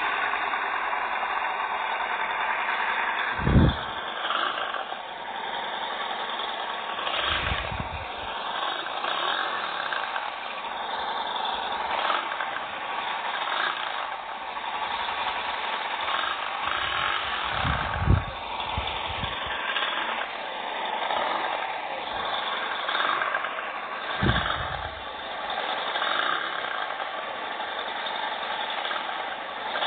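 Recorded engine sound of a Yamaha V-Star 250's air-cooled V-twin played back by a motorcycle-sounds app, running steadily with a few short low thumps.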